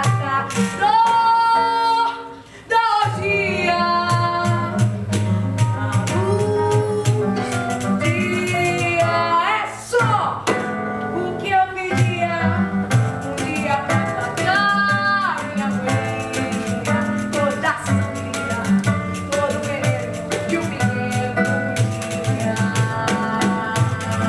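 A woman singing a song with band accompaniment: a sung melody over a steady bass line and light percussion. There is a brief break between phrases about two and a half seconds in.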